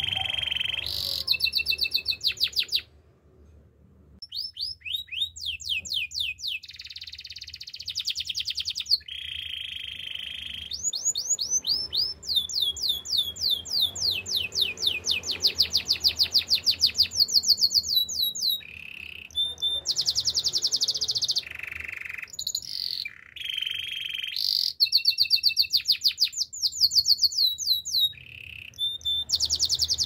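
Canary singing: phrase after phrase of fast trills, each a rapid run of sweeping notes, with short breaks between phrases and a brief silence about three seconds in.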